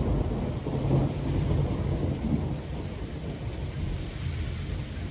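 Thunder: a deep rumble that starts suddenly, is loudest about a second in, then rolls on and slowly fades toward the end, over a steady hiss of rain.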